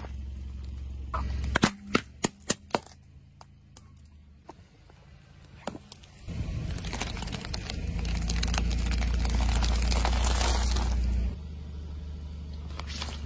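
Balloons fixed to toothpaste tubes bursting one after another under a slowly rolling car tyre: five or six sharp pops within about a second. About halfway through, a steady rushing noise with a low rumble starts and stops suddenly some five seconds later.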